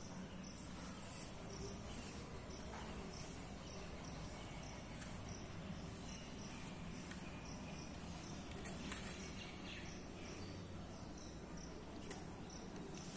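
Faint insect chirping, a high pulse repeating about twice a second, with a couple of light clicks about nine seconds in.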